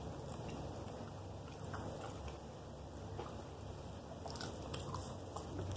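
Quiet chewing and crunching of a fried shrimp and oyster po-boy, with scattered small bites and crunches.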